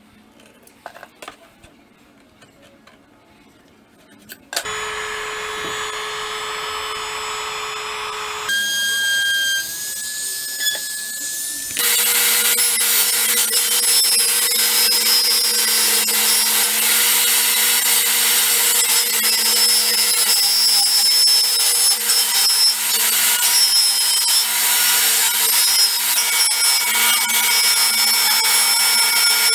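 A few light clicks of a pen marking PVC pipe, then about four seconds in a power tool starts with a steady hum. From about twelve seconds in a table saw cuts lengthwise along a split PVC pipe, a loud, steady rasp over the motor's hum.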